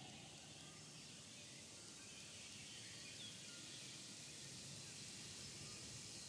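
Quiet woodland ambience: a faint steady hiss with a few faint, brief bird chirps.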